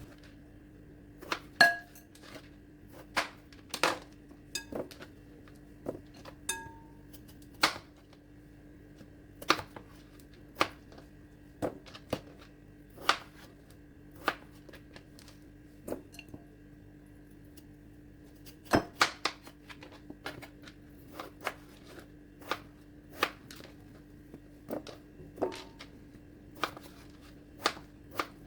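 Knife chopping food into chunks on a cutting board: sharp strikes at an irregular pace, roughly one a second, over a faint steady hum.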